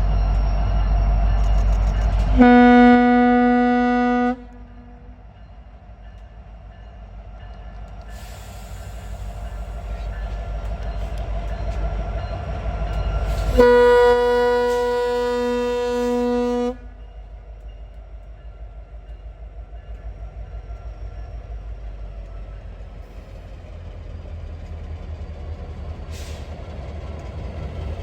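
Locomotive air horn sounding two blasts, a shorter one about two seconds in and a longer one of about three seconds midway, over the continuous low rumble of a train moving rotary snowplows.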